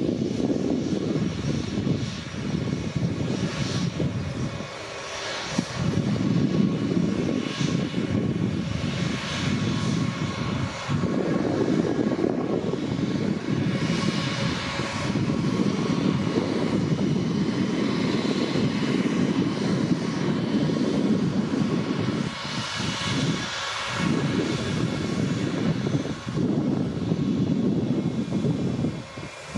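Airbus A320's twin IAE V2500 turbofan engines running at low taxi power while the jet turns around on the runway: a steady low rumble with a faint high whine over it.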